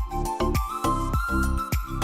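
Background music with a steady, even beat, a deep bass line and a bright melody.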